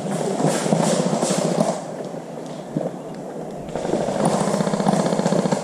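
Airsoft guns firing in rapid automatic bursts, a fast rattle of clicks, dying down for a moment mid-way and picking up again.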